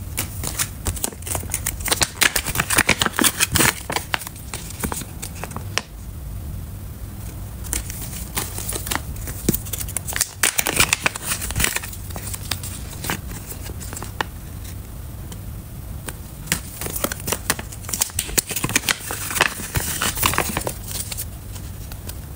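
Silver foil zip-lock pouches being picked up, flexed and handled, crinkling and crackling in several bursts with quieter handling between.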